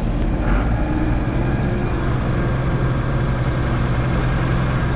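John Deere tractor's diesel engine running steadily at low throttle, heard from inside the cab; the engine is still warming up, its hydraulic oil not yet warm.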